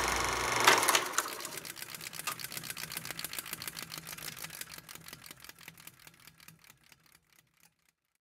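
A loud knock, then rapid mechanical clicking at about ten a second that slows and fades away over some seven seconds, over a faint low hum.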